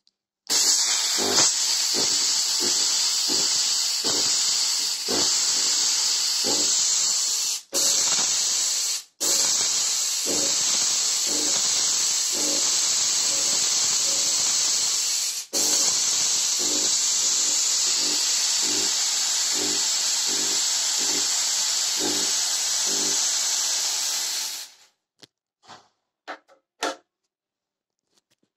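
Antari F-80Z fog machine blasting fog: a loud, steady hiss with a pulsing underneath about twice a second, broken by a few short gaps and stopping near the end.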